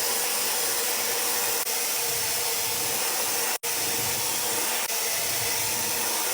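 Hair dryer blowing steadily: a rush of air with a steady hum under it. It cuts out for an instant about three and a half seconds in.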